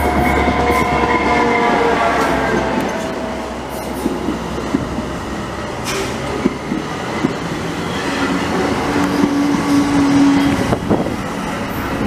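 An EMD diesel locomotive heading a commuter train passes close by, its engine note falling and fading over the first few seconds. Bilevel passenger coaches follow, rolling past with wheels clicking over the rail joints and a brief squeal about nine seconds in.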